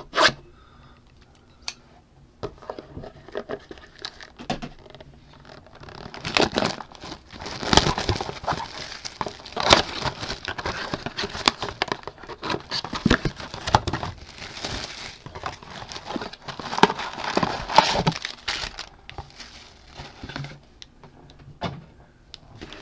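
Plastic wrapping on a trading-card blaster box crinkling and tearing as the box is unwrapped and opened. Scattered light clicks and taps of handling come first, then about twelve seconds of dense crinkling that thins out near the end.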